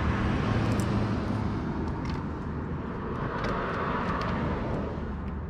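Steady low rumble of outdoor vehicle noise, with a few faint clicks.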